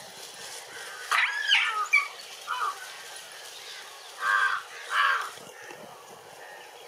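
Animal calls in the open: a call of about a second that rises and falls, a short one after it, then two short wavering calls close together a little past the middle.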